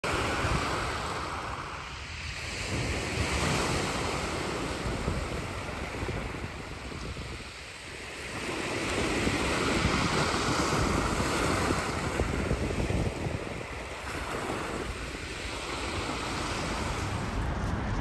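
Sea waves breaking and washing up a shingle beach, the surf swelling and falling back roughly every six seconds.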